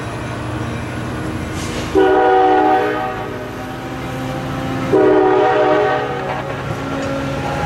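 Metra commuter train sounding two horn blasts, each about a second long and about three seconds apart, as a chord of several tones, over the steady rumble of bilevel passenger cars rolling past.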